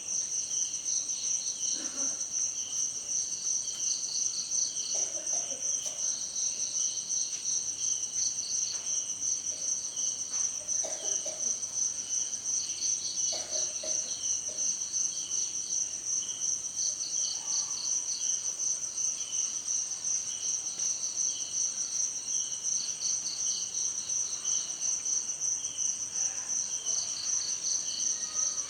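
Insect chorus, cricket-like: a steady high trill, with pulsed chirping in repeated groups just below it. A few faint, brief lower sounds come through underneath now and then.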